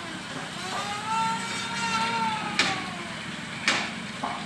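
A vehicle engine revving up and falling away, its pitch rising and then sinking over about two seconds. This is followed by three sharp knocks, roughly a second apart, in the second half.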